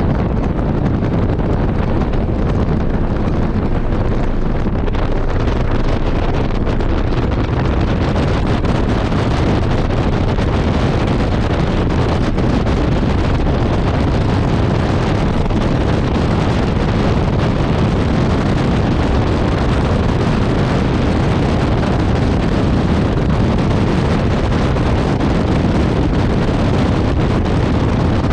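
Heavy, steady wind buffeting on the microphone of a Porsche 718 Cayman running at speed on track, drowning out the engine.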